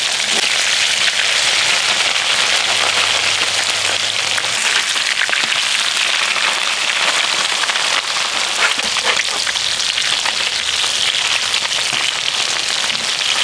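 Shemaya fish sizzling as they fry in a pan of hot vegetable oil and butter: a steady hiss with scattered crackles.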